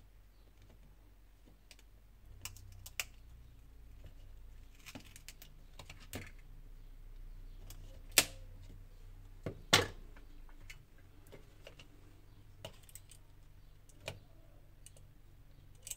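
Scattered light clicks and taps of an opened smartphone's parts being handled, with two sharper clicks about eight and ten seconds in.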